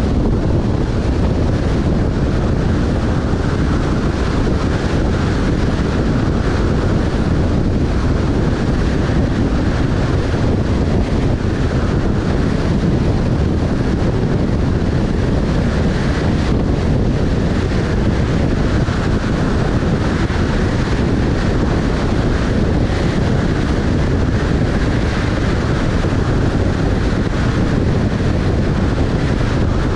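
Wind buffeting the microphone: a loud, steady, low rumble that does not let up.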